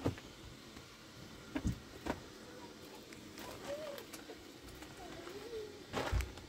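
Hands scooping wet plaster from a metal basin: a few sharp knocks and scrapes against the basin, the loudest near the end.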